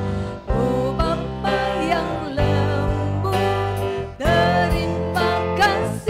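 Small live worship band playing a children's song in Indonesian: several voices singing together over acoustic guitar, electric bass, keyboard and drums, with a steady drum beat.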